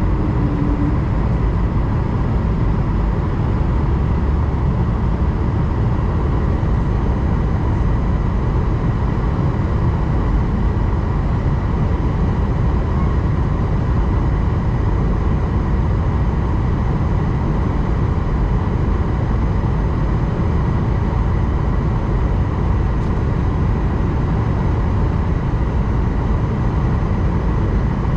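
Steady cabin noise inside an Airbus A220-100 airliner on final approach: an even, low rumble of airflow and jet engines, with a faint steady whine.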